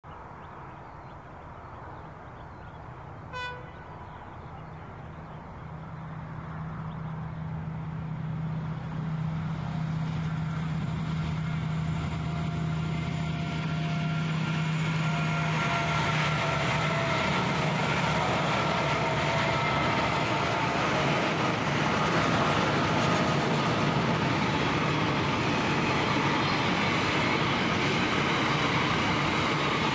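A long freight train hauled by four CSR class diesel locomotives approaching and passing. There is a short horn toot about three seconds in. The locomotives' low engine drone grows louder until the lead unit passes about halfway through, then the wagons roll by with a steady rumble.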